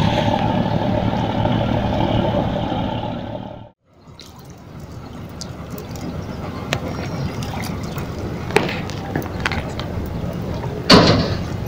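Water churning and splashing under a steady rumble as a cast net lands on the river. After a sudden cut comes quieter riverside noise with scattered light clicks, and a short loud knock near the end.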